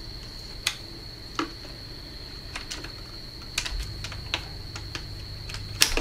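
Sharp plastic clicks and taps as a battery pack's connector is pushed in and the pack is handled against a robot vacuum's plastic housing: about eight separate clicks, the loudest near the end.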